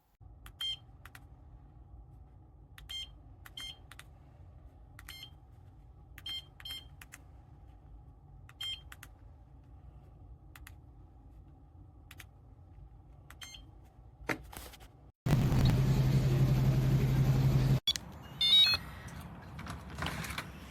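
Wyze Lock Keypad buttons pressed one at a time, each press a short high beep, irregularly spaced. About fifteen seconds in, a loud steady low hum runs for about two and a half seconds and cuts off suddenly, followed by a brief run of higher chirps.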